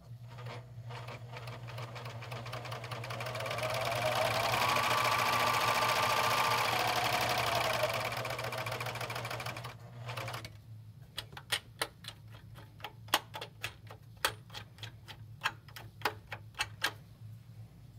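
Tacony Companion SergeMate 5040L serger running with no fabric fed: its motor and stitch mechanism speed up into a fast clatter, hold for a few seconds, then slow and stop about ten seconds in. After that come a dozen or so sharp, separate clicks as the thread tension dials on top are turned.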